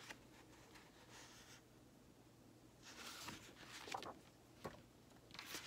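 Faint paper rustling as the pages of a picture book are turned, with a few soft taps.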